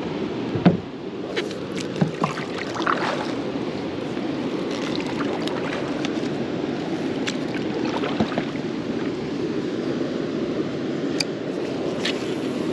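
Steady splashing and running of water around a plastic kayak as it is paddled on a river, with a few sharp knocks of the paddle against the hull in the first three seconds.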